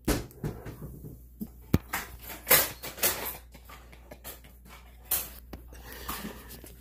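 Handling noises: scattered clicks and knocks with a few short rustles of the plastic wrapping around the new mop, the loudest about two and a half seconds in.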